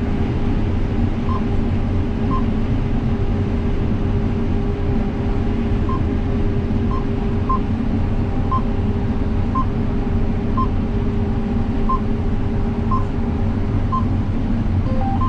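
Combine harvesting corn, heard from inside the cab: a steady machine drone with a low hum and a constant mid-pitched tone. Over it, a short electronic beep sounds about once a second from about a second in.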